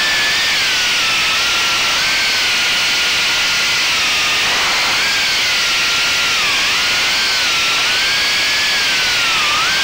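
Whine of a 3-inch FPV quadcopter's brushless motors (1407 3400kv) spinning HQProp 3x3x8 three-blade props, over a steady hiss. The pitch wavers with throttle, dipping briefly several times and climbing back.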